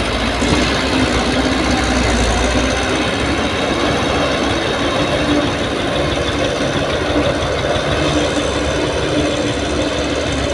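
Heavy diesel engine of earth-moving machinery running steadily, with a low rumble that drops away about three seconds in.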